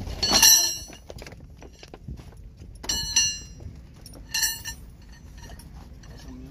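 Steel rebar clanking three times against a rebar column cage, each strike ringing briefly with a bright metallic tone, the first loudest.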